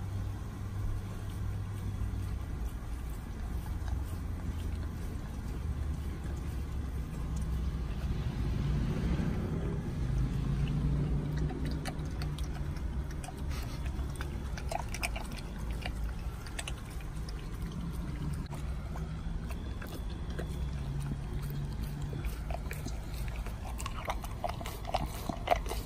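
A dog licking and chewing watermelon flesh from a half melon: wet slurping and lapping, with sharper clicks near the end, over a low steady hum.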